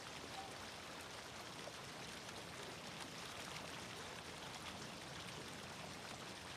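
A thin stream of water pouring from a pipe into a fish pond: faint, steady splashing and trickling.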